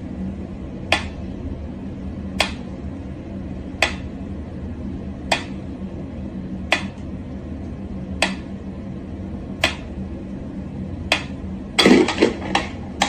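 Mechanical pendulum metronome ticking slowly and evenly, one sharp tick about every second and a half, over a low steady hum. Near the end a louder cluster of knocks and rattles comes as a cat swats at the metronome.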